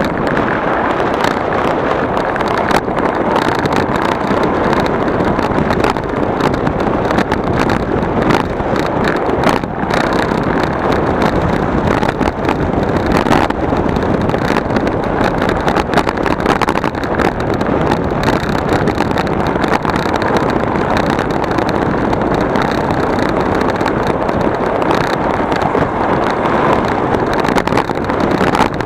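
A moving vehicle travelling, a steady loud rush of road and engine noise with wind buffeting the microphone.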